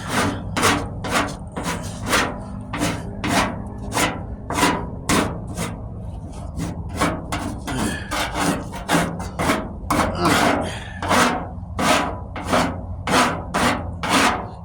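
Surform rasp pushed in quick, even strokes over partly set Bondo body filler, about one and a half dry scraping strokes a second, roughing the filler down to shape.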